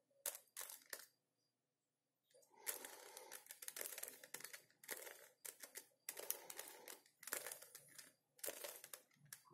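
Plastic 3x3 Rubik's Cube having its layers turned quickly, one after another, while a move sequence is repeated to put the corners in place: runs of clicking and clattering, with a short pause about a second in.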